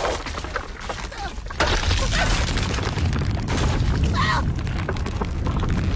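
Cartoon sound effects of ice cracking and splitting: a sudden boom about a second and a half in that carries on as a deep, steady rumble, with cracking noise over it. Short, squeaky, pitch-bending squirrel vocalizations break in a few times.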